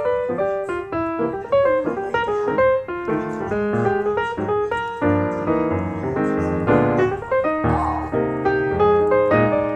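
Piano music, with quick notes one after another.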